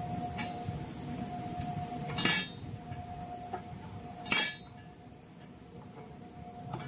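Two short, sharp metallic clinks about two seconds apart, from small screws and a screwdriver against the amplifier's sheet-metal cover and the hard tabletop as the cover screws are taken out.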